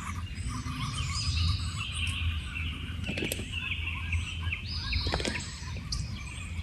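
Wild birds chirping and calling, over a steady low rumble, with a couple of short knocks about three and five seconds in.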